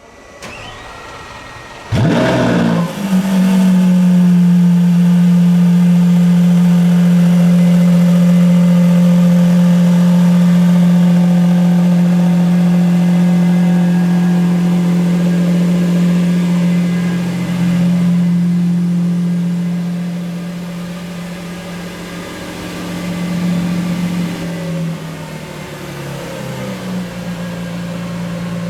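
A 2022 Lamborghini Countach LPI 800-4's V12 starting up: a brief whir, then about two seconds in the engine catches with a quick rise in revs and settles into a loud, steady high idle. Later the idle drops to a lower, quieter level.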